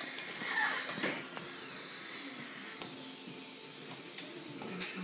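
Dental high-speed drill whining at a high steady pitch, then winding down and stopping about a second and a half in, over a steady hiss. A couple of sharp clicks near the end.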